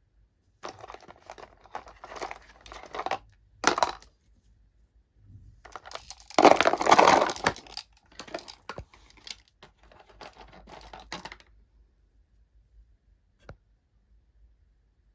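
Toy packaging being torn open and crinkled by hand in bursts of rustling, loudest about six to eight seconds in, followed by a couple of small clicks near the end.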